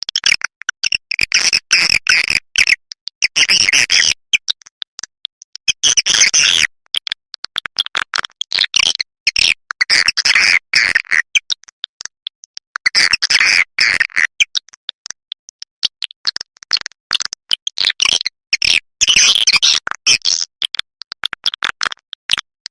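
Swiftlet call recording used to lure swiftlets into a nesting house: rapid, high chittering chirps in dense bursts of a second or two, separated by short gaps.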